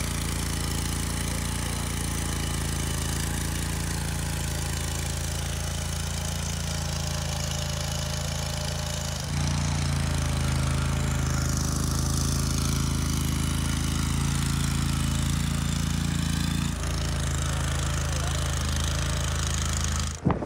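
Engine of a Barreto compact tracked trencher running steadily as it digs a trench. It gets a step louder about nine seconds in and breaks off abruptly near the end.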